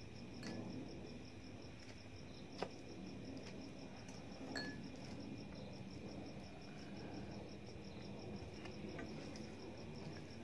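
A cricket chirping steadily in a fast, even pulse, over soft sounds of a hand mixing rice on a steel plate. A sharp click comes a couple of seconds in and a lighter clink near the middle.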